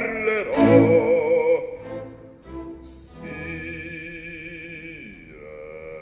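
Opera orchestra playing live: loud, wavering sustained notes at first, dropping away after about two seconds, then a quiet, steady held chord from about three seconds in.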